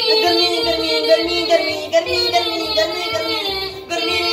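Hindi pop song playing: a sung melody with long held notes over a steady beat of about two pulses a second.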